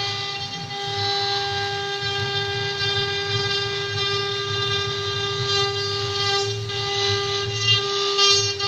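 Multi-spindle CNC router running, its spindle motors giving a steady whine over a low hum while the cutters carve a wooden relief panel. A rougher cutting hiss swells in the second half.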